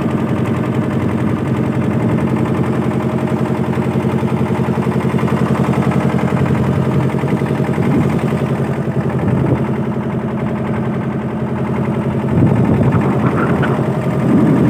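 Motorboat engine running steadily, a rapid, even chugging.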